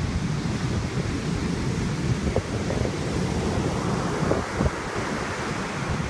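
Heavy storm surf breaking and washing up the beach in a steady rush, with wind buffeting the microphone in low rumbling gusts.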